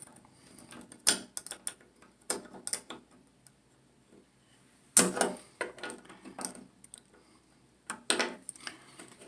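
Metal tool clicking and scraping against the collar of a Delta Monitor shower valve cartridge in several short bursts as the overtight collar is worked loose.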